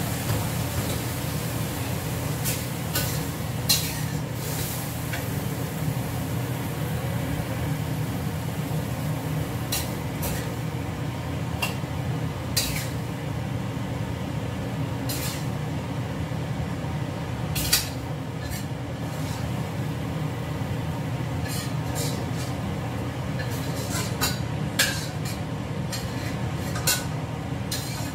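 Cooking utensils clinking and scraping against a wok and dishes while stir-frying noodles, a dozen or so scattered sharp clinks over a steady low hum.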